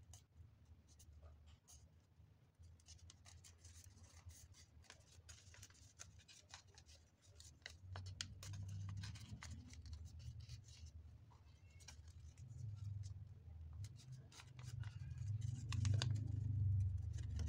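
Sheet of origami paper crackling and rustling as it is folded and creased by hand, in many short scratchy crinkles. A low rumble comes in about halfway and grows louder near the end.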